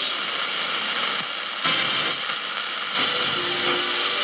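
Philips D1600 pocket radio's speaker giving a loud, steady hiss of static, with weak reception drowned in interference. The hiss steps up louder about one and a half seconds in and again about three seconds in, and a faint low tone comes through briefly near the end.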